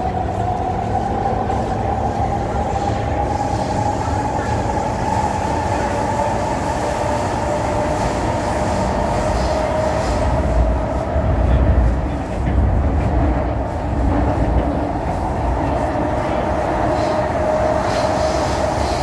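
Kawasaki C151 metro train running, heard from inside the passenger car: a steady low rumble of wheels and car body under a single whining tone that climbs slowly in pitch, then sinks. The rumble swells a little past the middle.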